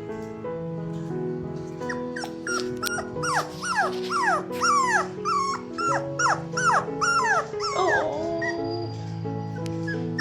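Puppy whimpering: a quick string of about a dozen short whines, each falling in pitch, starting about three seconds in and stopping about eight seconds in, over background music.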